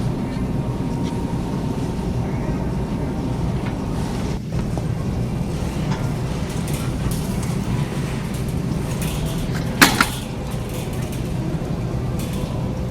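Supermarket background ambience: a steady low hum and rumble of the store, with faint scattered clinks and one brief, sharp clack about ten seconds in.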